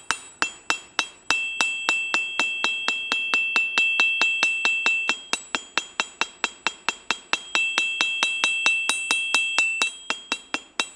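Steel hammer striking the bare face of a 66 lb cast steel anvil about four times a second, each blow giving a high, loud ring. The ring hangs on between blows for two stretches and is cut short in between, the way a magnet stuck on the anvil at the right spot damps it.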